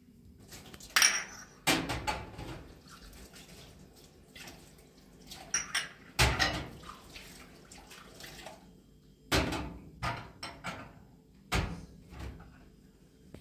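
Glass tea glasses and saucers clinking against each other and a metal tray while being rinsed at a steel kitchen sink, with water splashing. A string of sharp clinks, the loudest about a second in, around six seconds and near nine seconds.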